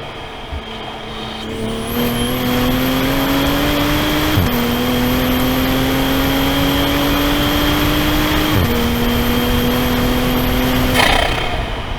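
Toyota GR Supra (A90) accelerating hard, its engine pitch climbing through the gears with two quick upshifts about four seconds apart, then the throttle lifting off suddenly near the end.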